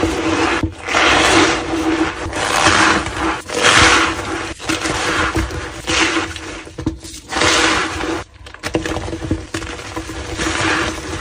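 Reformed gym chalk being crushed, a run of crunches coming about once a second.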